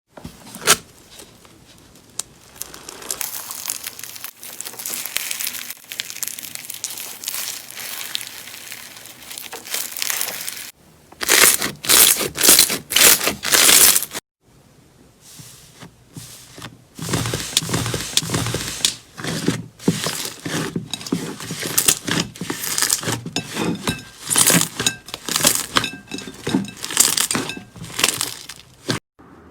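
Slime being pressed and pulled by hand, giving dense runs of crackling clicks and pops. The sound changes abruptly at a few cuts and is loudest for a few seconds near the middle.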